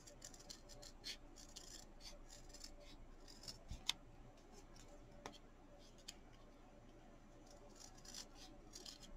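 Scissors snipping through several stacked layers of fabric, a run of short, faint snips as a rough circle is cut out around a template, with a couple of sharper clicks near the middle.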